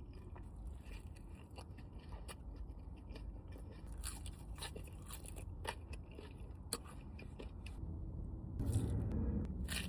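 Close-miked eating: chewing and crunching of food with scattered sharp clicks, growing louder and denser near the end.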